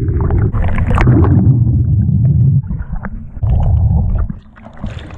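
Hot tub water churning around the camera at or below the surface: a loud low rumble with splashes and knocks. It breaks off briefly near three seconds and falls away about a second before the end.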